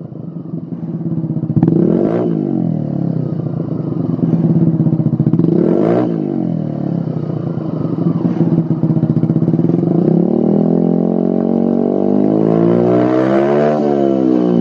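Peugeot Speedfight 125 scooter's 125cc single-cylinder engine revved through a Lextek CP8C aftermarket silencer, rear wheel spinning free on the stand. Two quick throttle blips come about two and six seconds in, then a slower climb in revs to a peak near the end, falling away again.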